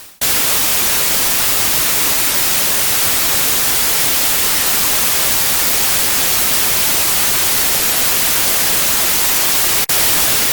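Loud, steady static hiss of white noise spread across all pitches, starting abruptly after silence. It drops out for a moment near the end, then resumes.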